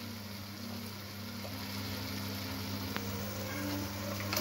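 Banana blossom and prawn curry sizzling faintly in a kadai over a steady low hum, with a single light click about three seconds in.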